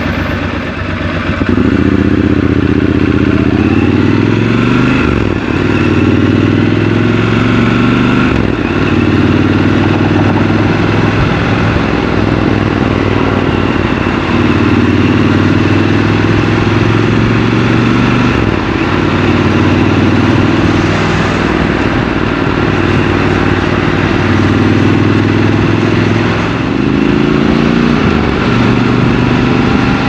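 Triumph Scrambler 1200 XC's parallel-twin engine idling, then pulling away from a stop about a second and a half in and running on in city traffic. The engine note rises and drops briefly several times as the bike gets under way.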